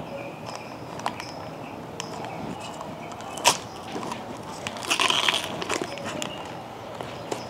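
Small clicks and rustles of slime-kit containers and materials being handled, with a sharper click about three and a half seconds in and a brief rustle around five seconds.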